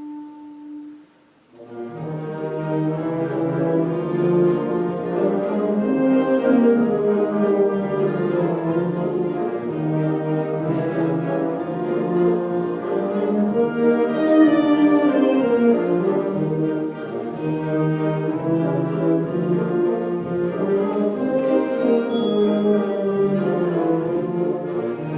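Orchestral music with brass prominent: a held woodwind note fades out just after the start, then the full orchestra comes in about a second and a half in and plays on.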